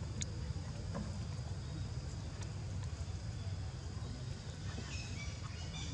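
Outdoor background noise: a steady low rumble with a few faint clicks, and some faint short high chirps about five seconds in.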